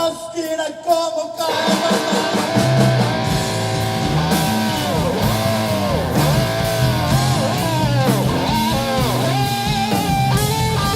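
Live rock band playing with loud electric guitar, its notes bending and wavering. The band drops out briefly in the first second or so, then comes back in full.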